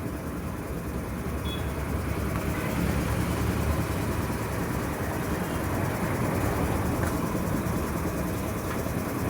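A vehicle engine running steadily with a low rumble, growing a little louder about two seconds in.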